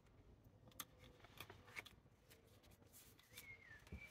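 Near silence with a few faint clicks and rustles of plastic cable ties being snipped and pulled off a small tree's trunk.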